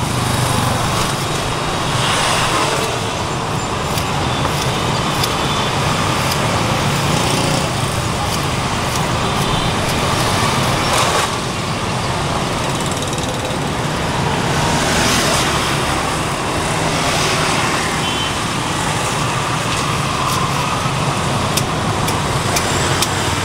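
Steady road traffic noise, a continuous din of passing vehicles.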